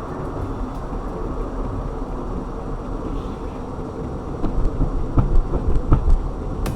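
Steady low rumble of a car driving: engine and tyre road noise. From about halfway through, a run of short thumps.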